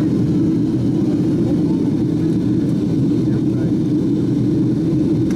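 Steady cabin noise inside a Boeing 737-800 on its descent: the low, even drone of its CFM56-7B turbofan engines and the airflow over the fuselage, heard through the cabin.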